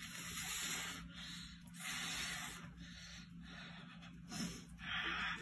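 Faint, strained breathing of someone arm wrestling, a hissing breath about once a second.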